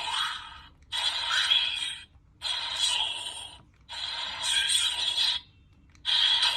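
Electronic sound effects from a modified Ark driver toy transformation belt, played through its small tinny speaker in about five bursts, each roughly a second long with brief gaps between.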